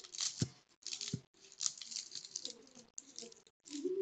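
Crisp baked filo pastry crackling and crunching in short bursts as it is cut and broken apart with a utensil, with two dull knocks in the first second or so.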